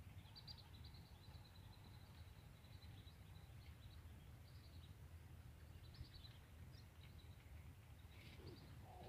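Near silence, with faint high bird chirps on and off over a low steady rumble.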